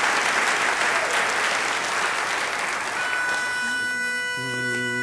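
Audience applause dying away; about three seconds in, a pitch pipe sounds one steady note, and shortly before the end four men's voices come in together on a close-harmony barbershop chord.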